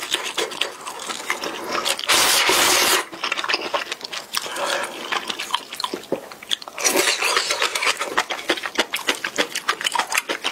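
Close-miked chewing of spicy instant noodles: rapid wet mouth clicks and smacks. A louder rushing noise lasts about a second, about two seconds in, and a shorter one comes near seven seconds.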